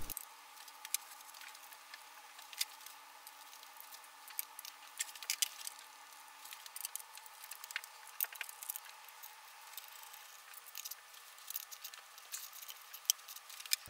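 Faint, scattered clicks and light metallic taps as small parts, a coolant pipe and a ratchet are handled and fitted on a bare engine block.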